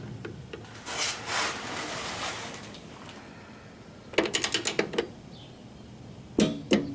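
Torque wrench working the 3/8 running-board bracket bolts to 19 foot-pounds: a run of rapid ratchet clicks about four seconds in and a shorter run near the end, with soft handling noise before them.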